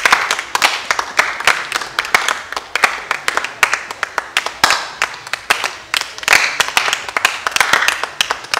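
A group of people clapping their hands, many claps overlapping, with faint voices under the clapping.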